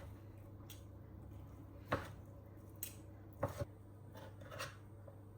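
A few light, scattered knocks and clicks from kitchen utensils during food preparation, over a faint steady hum.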